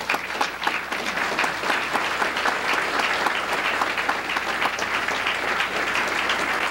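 Audience applauding: many hands clapping, building quickly at the start and then holding steady.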